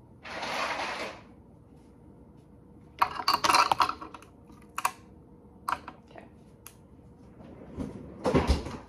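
Ice cubes clinking and rattling against a glass mason jar as iced coffee is stirred with a straw, in a quick cluster about three seconds in, then a few single clinks. A short hiss comes near the start, and a clatter with a thump near the end.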